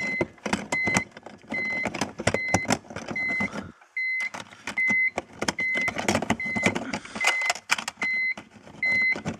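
A short high electronic warning beep repeating evenly, about three beeps every two seconds, over irregular clicks and knocks.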